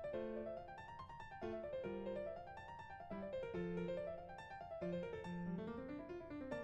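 Background piano music: gentle rising and falling arpeggios.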